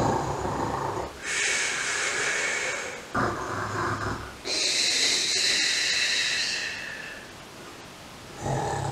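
A person snoring: low rasping snores alternate with long hissing breaths, about three snores and two hisses.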